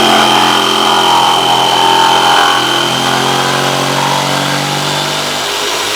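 Electric drill running at a steady high speed with a constant whine, cutting to enlarge a hole.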